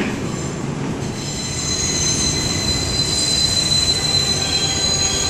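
New York City subway trains running on elevated track: a steady rumble with a high, steady wheel squeal of steel wheels on the rails setting in about a second in.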